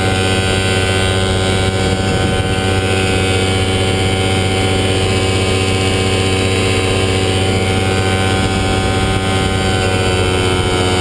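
Falcon XP ultralight aircraft's engine running steadily in flight, its pitch rising slightly near the end.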